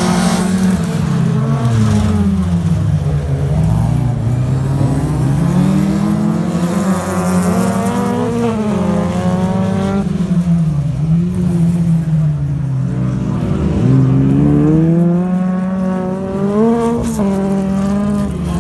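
Folkrace cars racing on a dirt track, their engines revving up and falling back again and again through gear changes and corners, with two or more engines overlapping at different pitches.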